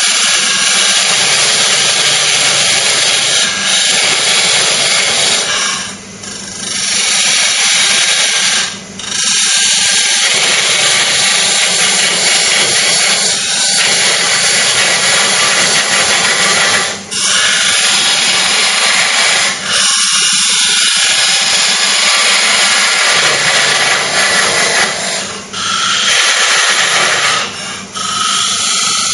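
A parting tool cutting into a grass tree bowl spinning on a wood lathe: a loud, steady hiss of the cut, broken by several short pauses where the tool eases off. This is the cut that makes a wide groove to part the bowl off the lathe.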